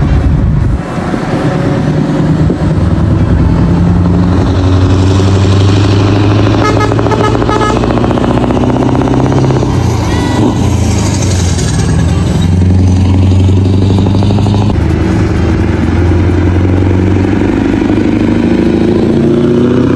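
Heavy Scania truck engines running under load as the rigs with drawbar trailers drive past close by, the deep engine note climbing and dropping several times.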